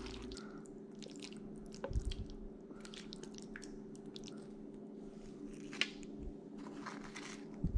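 Pasta being tossed in a pan of cream sauce: soft wet squishing with scattered light clicks of a utensil, over a steady low hum.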